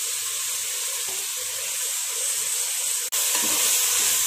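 Sliced onions and mint leaves sizzling in hot oil in a pressure cooker, a steady hiss. About three seconds in it breaks off for an instant and comes back a little louder, with a ladle stirring through the food near the end.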